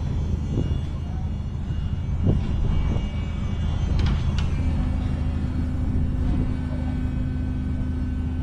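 Large engine running steadily, with a few sharp knocks.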